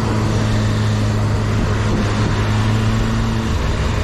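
Motorcycle engine running at steady revs under wide wind and road noise, as heard from the rider's own camera. The steady engine note drops away about three and a half seconds in.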